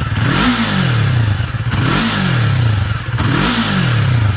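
Yamaha R3's 321 cc parallel-twin engine revved in three quick throttle blips at a standstill, each rising sharply and then sliding back down, through the stock exhaust with its silencer fitted.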